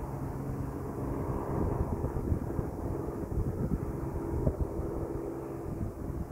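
Distant engine drone: a steady low hum that fades about a second and a half in, leaving a low rumble.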